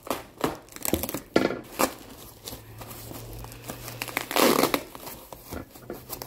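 Plastic and foam packing wrap crinkling and rustling as it is handled and pulled open, in irregular crackles, with a louder spell of rustling a little past four seconds in.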